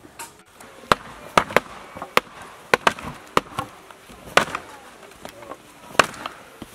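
A run of about ten sharp knocks or cracks at irregular intervals, some much louder than others.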